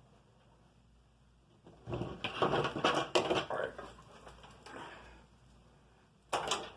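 Hands rummaging through and handling hardware and packaging, with rustling and clattering for about two seconds, a little more handling, then a short sharp clatter near the end.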